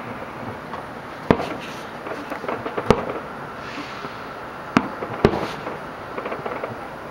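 Aerial fireworks shells bursting: four loud bangs spread across a few seconds, the last two about half a second apart, over a steady patter of smaller crackling reports.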